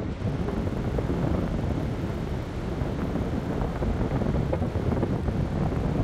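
Wind buffeting the microphone: a steady low rumble with no pitch to it.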